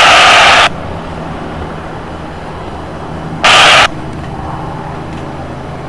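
Handheld aviation radio hissing with static that cuts off abruptly just under a second in, then a second short burst of static about three and a half seconds in. Underneath, a quieter steady low hum from the light plane's engine.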